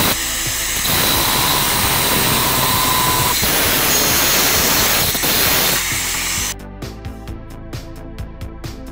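Angle grinder with a thin cut-off disc cutting through a steel threaded rod and nut: a loud, steady grinding hiss that stops abruptly about six and a half seconds in, after which background music with a steady beat plays.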